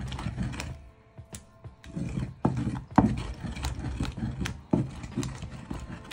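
Wooden pestle grinding tomatoes and pepper against the ridged inside of a clay grinding bowl (asanka): repeated wet rubbing and scraping strokes with sharp knocks of wood on clay, with a brief pause about a second in.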